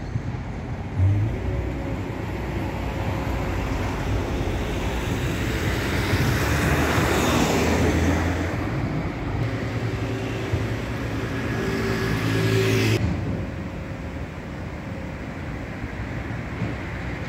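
Street traffic: a motor vehicle passes close by about seven seconds in. A steady engine hum cuts off suddenly about two-thirds of the way through.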